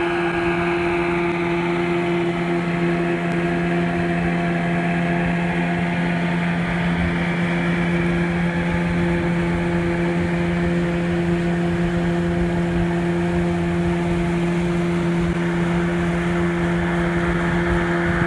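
Vehicle running at a steady speed: an even engine-and-road drone with a constant low hum.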